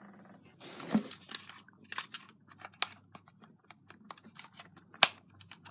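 A small plastic portable radio, a Tecsun PL-606, being handled as its batteries are sorted out: a brief rustle about a second in, then scattered plastic clicks and taps, the sharpest about five seconds in.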